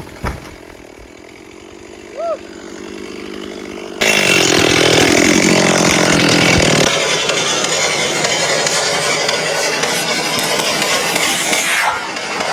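Stihl chainsaw idling, then opened up abruptly about four seconds in and running loud at full throttle.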